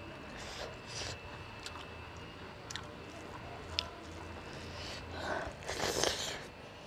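Eating by hand: fingers mixing rice and mustard greens on a steel plate, with scattered small clicks, then a louder mouth sound about six seconds in as a handful is taken into the mouth and bitten.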